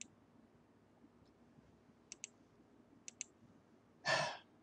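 Computer mouse clicks: one click at the start, then two pairs of quick clicks about a second apart, followed near the end by a short exhaled breath.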